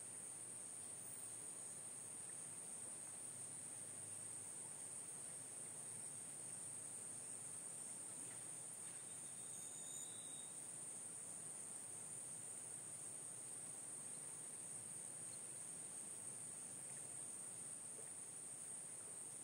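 Faint, steady high-pitched chorus of insects, unbroken throughout, with a short high chirp about halfway through.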